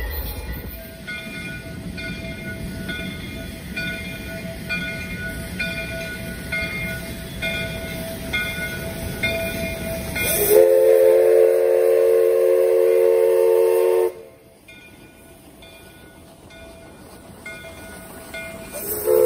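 Diesel locomotive running light, its engine a steady low rumble, with a bell ringing about once a second. Then the Shay No. 5 geared steam locomotive sounds a loud chime steam whistle, a steady three-note chord for about three and a half seconds that cuts off sharply. A bell keeps ringing more faintly, and the whistle sounds again near the end.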